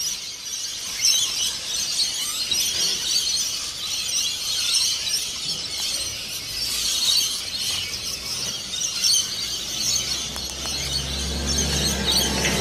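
A flock of rainbow lorikeets screeching and chattering, many shrill calls overlapping at once. A low steady hum comes in near the end.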